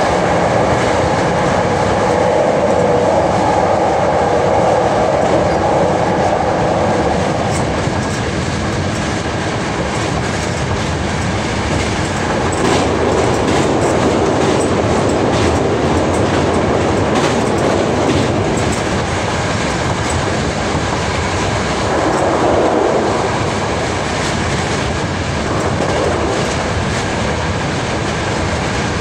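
Hankyu 8000 series electric train running at speed, heard from the front of the leading car: a steady rumble of wheels on rail, with clicks over rail joints.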